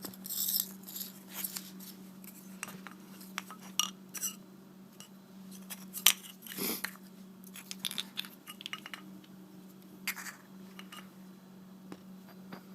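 Small plastic and metal parts of a dismantled LED bulb being handled and fitted together: scattered light clicks and taps, over a faint steady hum.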